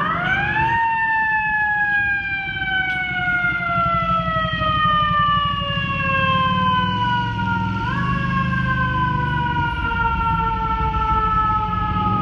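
FDNY fire truck siren, which winds up quickly in pitch, then falls slowly for several seconds. It winds up again about eight seconds in, over the low rumble of the truck's engine.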